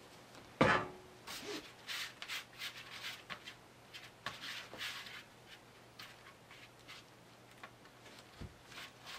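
Glue being spread across a foam core board: a run of short, irregular rubbing and scraping strokes that thin out after about five seconds. A brief louder sound comes about half a second in.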